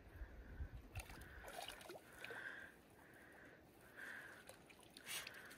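Faint splashing and sloshing of shallow water as a hooked fish is scooped into a landing net, with a few sharp splashes about one to two seconds in and again near the end. A faint high note comes back about once a second underneath.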